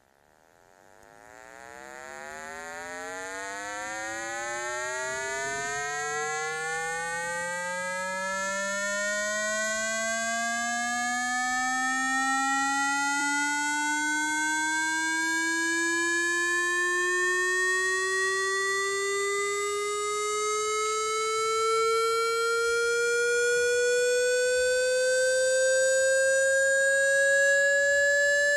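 Synthesized speaker water-ejection tone: a single electronic tone, rich in overtones, that fades in over the first few seconds and then rises slowly and steadily in pitch from a low hum to a higher tone. It is meant to be played at full volume to shake water out of a phone speaker.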